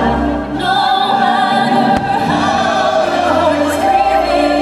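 Fireworks show soundtrack: orchestrated Disney music with a choir singing over an orchestra.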